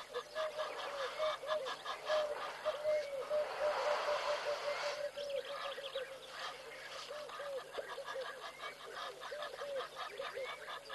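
A dense chorus of many animals calling without a break at the waterhole: short, arched, honking or croaking calls overlapping and repeating several times a second. A brief rush of noise rises over it in the middle.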